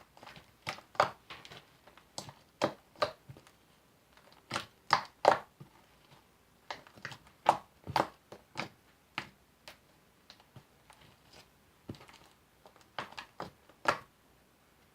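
White-glue slime being kneaded and stretched by hand, giving irregular sharp sticky pops and clicks, sometimes several in quick succession. The slime is still a little sticky while fresh activator is worked in.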